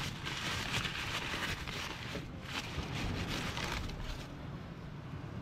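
Crumpled brown paper crinkling and rustling as hands unwrap a small metal part, dying away about four seconds in.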